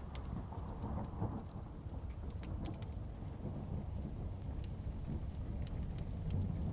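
Steady rain with a deep, continuous rumble of thunder and scattered sharp crackles from a wood fire.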